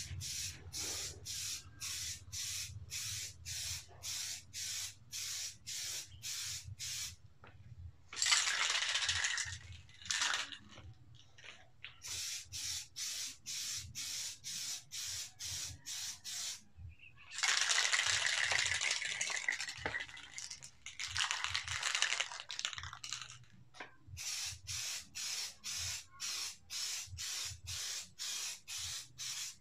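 Aerosol spray-paint can being shaken, its mixing ball rattling about three times a second, between long hissing sprays of paint; the longest spray lasts about three seconds.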